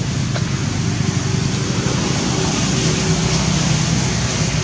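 Steady background noise with a low rumble underneath; no single sound stands out.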